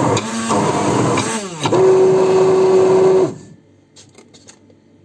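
Electric blender motor running at high speed while mixing mayonnaise; its pitch dips and recovers about a second and a half in, then it is switched off abruptly after about three seconds. A few faint clicks follow.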